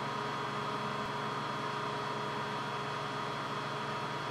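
Steady background hum and hiss with several constant tones, unchanging throughout: room tone with electrical hum, and no air cannon shot or valve click.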